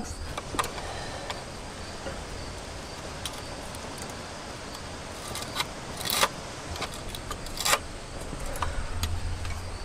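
Scattered small metallic clicks and taps of hands working on the opened distributor and its points on a 1964 Ford F250 engine, over a steady background of insects chirping. Two of the clicks, about six seconds and nearly eight seconds in, are louder.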